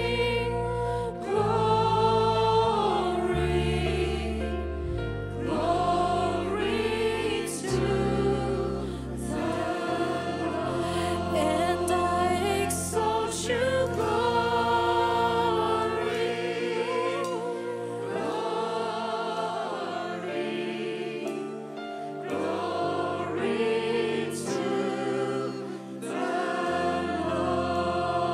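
Live worship music: a group of voices sings long held notes in harmony over a low bass accompaniment that moves in slow steps and drops out for a stretch past the middle.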